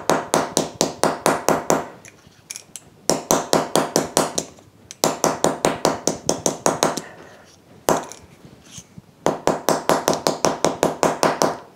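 Ball-peen hammer tapping a wooden joining biscuit on a concrete floor in quick runs of strikes, about six a second, with short pauses between runs. The strikes compress the over-thick biscuit so it will fit its slot.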